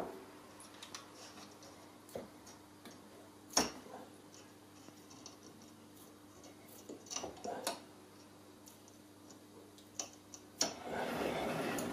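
Light clicks and taps of small hand tools and fingers working a thin rope's end at the ropewalk's hook, scattered a few times, over a faint steady hum; a longer rustle of handling starts near the end.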